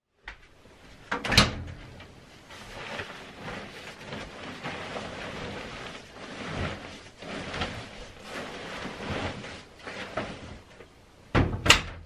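A bulky duvet rustling and swishing as it is stuffed into a front-loading clothes dryer, with a sharp thud about a second in. Near the end comes a couple of sharp knocks as the dryer door is shut.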